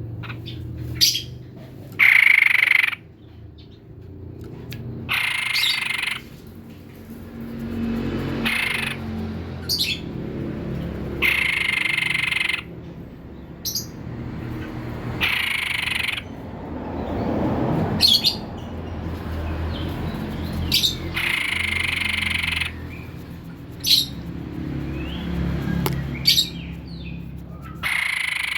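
White-breasted babbler (tepus dada putih) calling repeatedly: harsh phrases about a second long every few seconds, with short sharp high notes in between, over a low background rumble.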